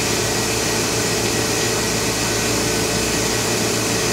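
Steady hum and whir of the running Oxford Plasmalab 133 ICP etch system's pumps and fans, an even hiss with a low steady hum.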